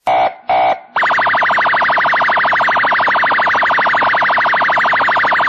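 Loud alarm-like electronic tone: two short blasts, then one long blast that pulses very rapidly and evenly for over four seconds and cuts off suddenly.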